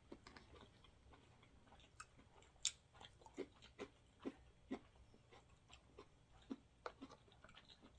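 Faint mouth sounds of someone chewing sushi: soft wet smacks and clicks at irregular intervals, about two a second through the middle, with one sharper click a little under three seconds in.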